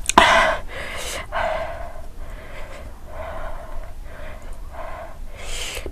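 A woman breathing hard through her open mouth, about eight quick, noisy breaths in six seconds, the first the loudest. She is panting against the burn of the Jolo chip, a super-hot chili chip.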